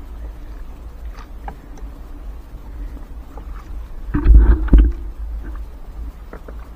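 Trammel net being hauled and picked over the side of a small boat: scattered light clicks and knocks, with a loud cluster of thumps about four seconds in.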